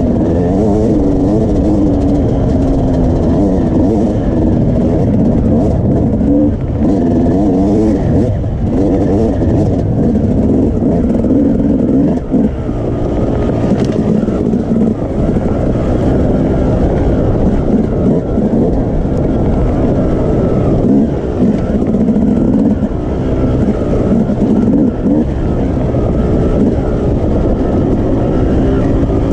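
Yamaha YZ250 two-stroke dirt bike engine revving up and down as it is ridden over rough ground, the pitch rising and falling constantly, easing off briefly about twelve seconds in.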